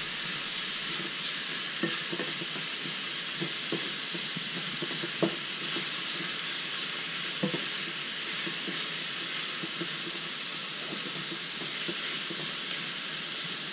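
Sliced paua (abalone) and onions sizzling steadily in oil in a stainless steel pan, almost cooked, while a wooden spoon stirs them, knocking against the pan a few times.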